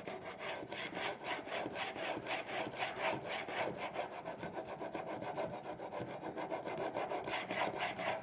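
Wide Japanese plane blade being rubbed quickly back and forth on a wet 500-grit waterstone in a wheeled honing guide: gritty scraping strokes, about four a second. The blade's bevel is being ground flat on the coarse stone to raise a burr.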